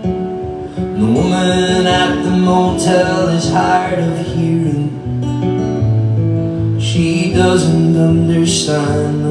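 Live acoustic song: two acoustic guitars played together with a voice singing over them.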